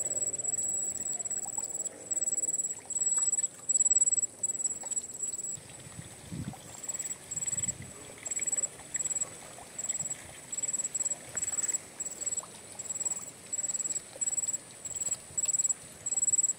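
Insect chirping in a high, steady tone that pulses on and off: longer pulses at first, then short chirps about twice a second. A few soft low knocks come about six seconds in.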